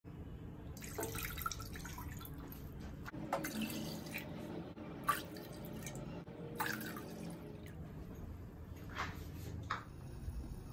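Water poured from a bowl into a stainless steel pressure cooker, landing in a series of separate splashes and drips.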